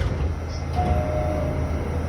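New York City subway car door chime: one high steady tone lasting under a second, about halfway through, over the low rumble of the train.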